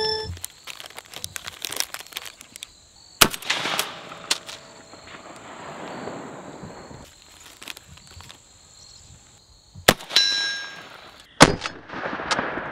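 Three single rifle shots from an AK-pattern rifle fitted with a muzzle device, about three seconds in, about ten seconds in and a second and a half later, each with a short echo. A brief metallic ringing follows the second shot.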